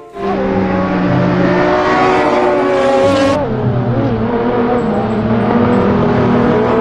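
Race car engine sound, a loud steady engine note whose pitch shifts slightly about three and a half seconds in.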